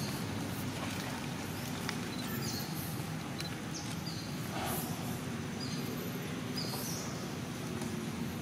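Forest ambience: short high bird calls repeating about once a second over a steady low hum.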